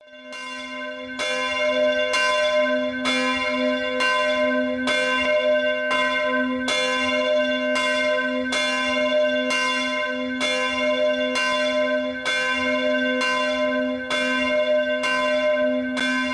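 A single church bell tolling, struck about once a second on the same note, its tone ringing on between strokes.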